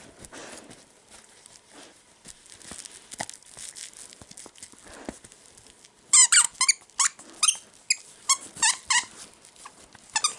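A husky chewing a plush donut dog toy, with soft mouthing and blanket rustling. About six seconds in, the toy's squeaker starts squeaking loudly, a dozen or so sharp, high squeaks in quick succession.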